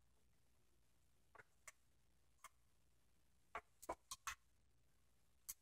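Faint, irregular clicks of plastic Lego bricks being picked through and handled in a pile, about nine or ten taps, most of them bunched a little after the middle.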